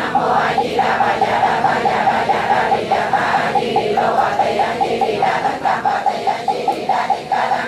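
A congregation chanting together in unison over a fast, even beat of about five knocks a second.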